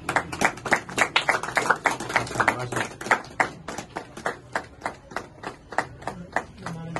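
A few people clapping their hands, with quick overlapping claps at first that thin out to a slower, sparser clapping over the last few seconds.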